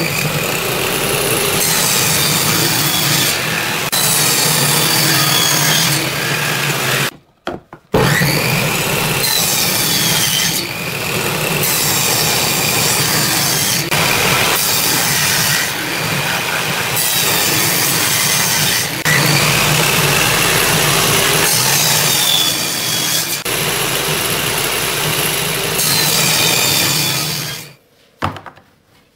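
Bench-mounted table saw running and ripping a pine board into thin strips. A steady motor hum sits under the cutting noise, with a whine that falls in pitch at several points. There is a short break about seven seconds in, and the saw stops near the end.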